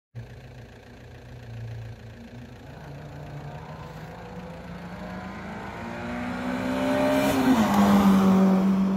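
Rally cars on a closed stage: one engine fades into the distance, then a Suzuki Swift rally car approaches at full throttle. Its engine note climbs, then drops as it passes close by, loudest near the end.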